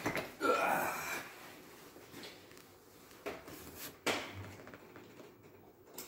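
Handling noises as a power wheelchair's controller cable is plugged back into its connector, with a sharp plastic click about four seconds in and a few fainter knocks before it. A brief vocal noise of breath or effort comes at the start.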